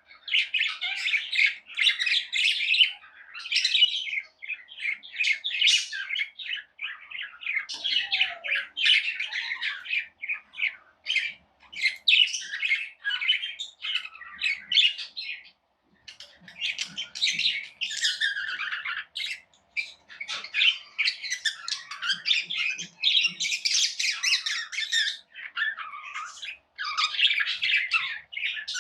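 Small pet parrots chirping and chattering nonstop, many quick high calls overlapping, with a brief pause about halfway through.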